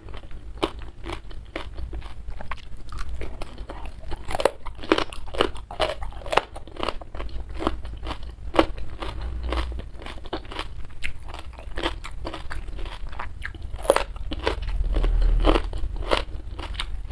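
Close-miked crunching and chewing of raw young jengkol (dogfruit) slices with sambal: a rapid, irregular run of crisp crunches.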